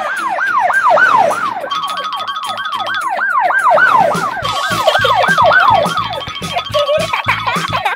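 Police siren sounding in quick repeated falling sweeps, about two or three a second, over background music with a beat that comes in about halfway.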